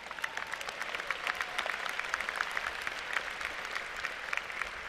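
Large crowd of graduates applauding, many hands clapping at once. It picks up just after the start and holds fairly steady.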